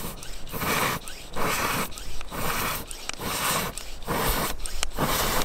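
Hand ball pump worked in quick strokes, each stroke a short rush of air: about eight strokes, roughly one every two-thirds of a second.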